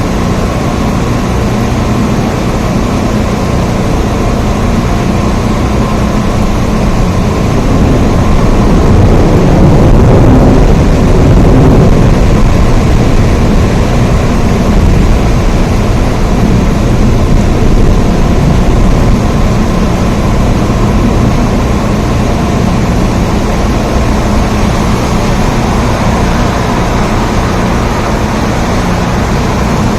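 Steady, heavy rain with a deep low rumble under it, swelling louder from about eight seconds in and easing off near the halfway point.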